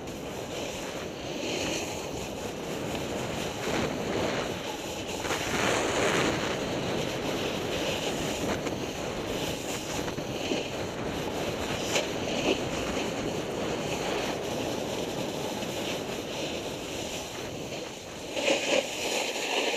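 Rushing noise of riding a snowboard down a piste: wind buffeting the microphone over a snowboard sliding and scraping across the snow, swelling and easing with the turns and briefly louder near the end.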